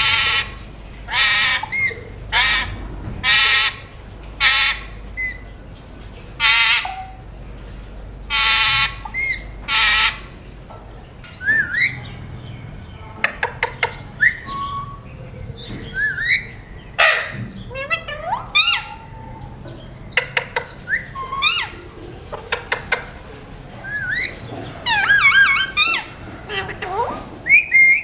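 Alexandrine parakeets calling: loud, harsh squawks about once a second for the first ten seconds, then shorter chirps, rising whistled notes and clicks, with a rapid warbling chatter near the end.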